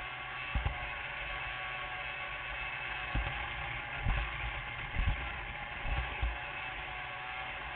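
G-scale model train running on its track, a steady mechanical whir with faint steady tones, broken by a few short low thumps at uneven intervals.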